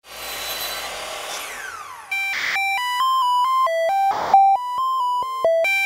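Electronic intro music: a noisy whoosh sweeping down in pitch, then about two seconds in a synth melody of clear, evenly held notes stepping up and down, with noisy percussion hits between phrases.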